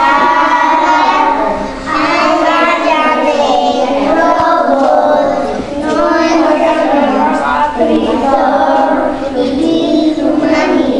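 A group of young children singing a song together, with short pauses between phrases about two and six seconds in.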